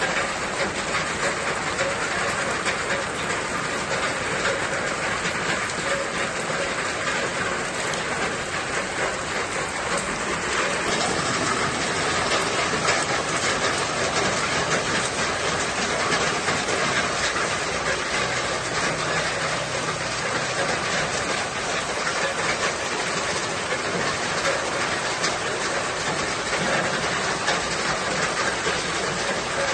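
Steady rain falling, a dense, even patter with no break.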